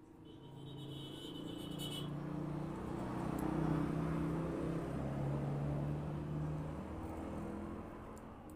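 A motor vehicle passing by: its engine noise swells over the first few seconds, steps slightly lower in pitch as it passes, and fades away toward the end. A faint high whine is heard during the first two seconds.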